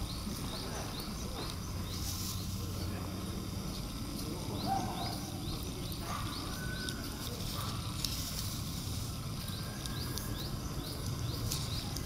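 Outdoor ambience: a long series of short, faint high chirps, two or three a second, each falling slightly in pitch, over a low steady hum.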